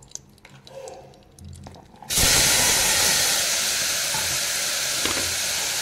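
Grated beetroot hitting hot melted ghee in an aluminium pressure cooker: after a few faint taps, a loud, steady sizzle starts suddenly about two seconds in.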